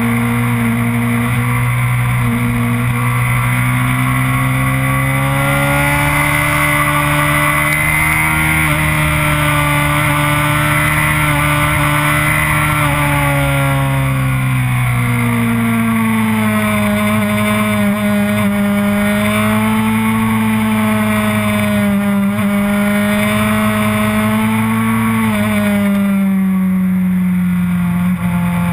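Sport motorcycle engine running hard through a track lap, its pitch climbing slowly for the first several seconds, dropping around the middle, then holding steadier with a small dip near the end. Heavy wind and road noise rush over the engine throughout.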